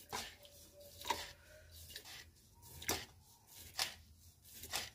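Spoonfuls of salt being added to a large metal pot of water, with a short, sharp click about once a second as each spoonful goes in, about five in all.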